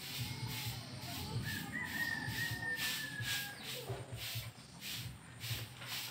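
Outdoor animal sounds: a high chirping that pulses about twice a second, with a thin whistle-like call held for about two seconds near the middle.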